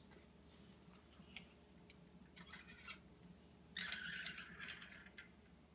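Near silence with a few faint clicks, then about four seconds in a soft scuffing lasting a second or so as a toddler crouches down on a wooden floor.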